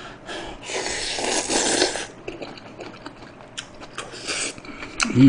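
A mouthful of seasoned seaweed stems slurped in for about a second, then wet chewing with short mouth clicks.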